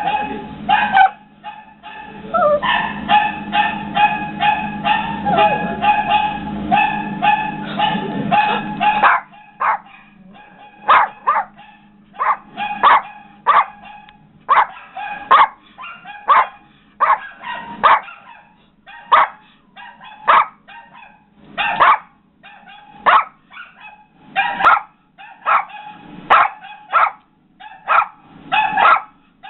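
Yorkshire terrier barking again and again in short, sharp barks, mixed with a recorded dog barking through computer speakers. The barking comes thick and fast over a low hum for the first several seconds, then settles to single barks about one a second.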